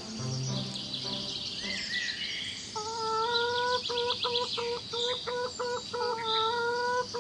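Insects trilling and birds chirping. About three seconds in, a flat, steady tone joins them, pulsing on and off a few times a second.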